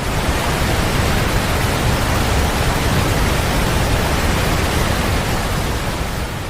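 A steady, even rushing noise, dipping slightly near the end, with no birdsong or other calls in it.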